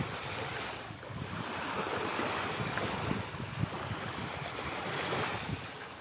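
Small waves washing in and out on a sandy shore, a steady hiss of surf, with wind buffeting the microphone in low rumbles.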